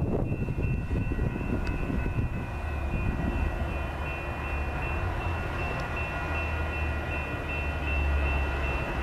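Low rumble of a train out of sight, heavier in the second half, with a steady, pulsing high ringing tone over it.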